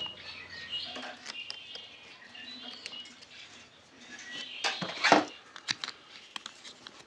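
Small clicks and handling noises of brass spade terminals being pushed into a plastic alternator connector housing, with louder snaps about five seconds in. Birds chirp faintly in the background.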